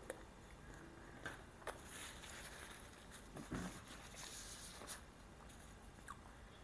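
Close-miked chewing of a bite of minced beef pita wrap: soft, wet mouth clicks and smacks, scattered and irregular, a few louder ones between one and five seconds in.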